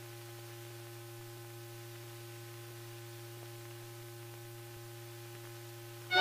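Steady low hum with a few fainter steady tones above it, over an even hiss, and two faint ticks: the background noise of an old 16mm film soundtrack before any sound is recorded on it.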